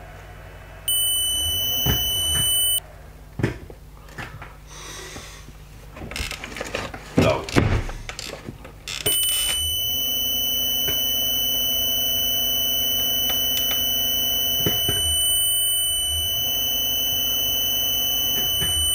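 Electric motor run from a ZW-CT1 VFD inverter through a push-button remote station, with a steady high-pitched whine: it runs briefly about a second in, then starts again about halfway through, this time with a low hum under the whine, and cuts off near the end. Switch clicks and knocks come in between the runs.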